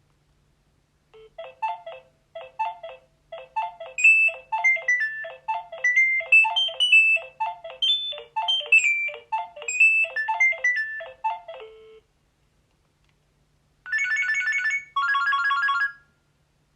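Nokia 3200 mobile phone's built-in polyphonic ringtone playing: an electronic melody over a repeating low note about twice a second, lasting about eleven seconds. After a short pause, two short held chords sound near the end.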